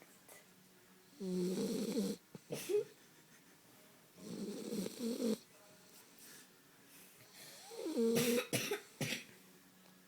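A dog snoring in its sleep: three pitched snores about three seconds apart, the last one broken up by a few short sharp sounds.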